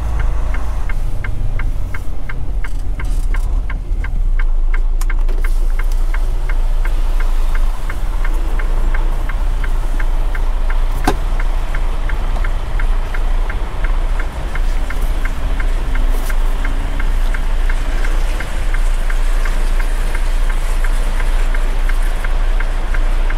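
Semi truck's diesel engine running low and steady, heard from inside the cab, with the hazard flashers ticking evenly a couple of times a second throughout. A single sharp click comes about eleven seconds in.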